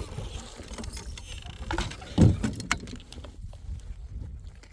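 Irregular knocking and clattering of gear on a small fishing boat, with one heavy thump about two seconds in.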